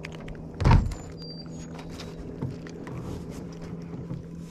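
A single loud thump about a second in, over a steady low hum.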